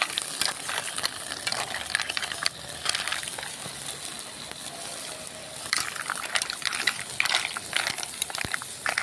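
Green mussel shells clattering against a cooking pan as they are stirred, in clusters of sharp clicks, over a steady sizzle from the pan.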